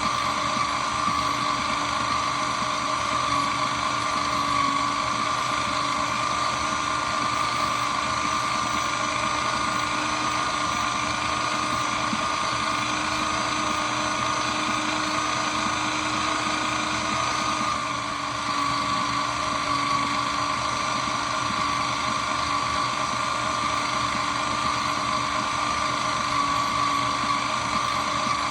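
Shredder machine running with no load, a steady motor whine over a constant mechanical rush, briefly dipping about 18 seconds in.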